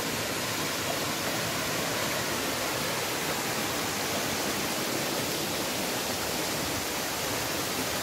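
Sım waterfall pouring into the rocky stream at its foot: a steady, even rush of falling and running water.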